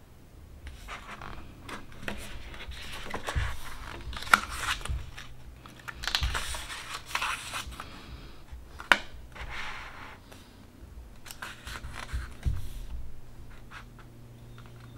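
Pages of a paperback book being turned and handled: irregular paper rustling and sliding, with two sharp clicks, one about four seconds in and one about nine seconds in.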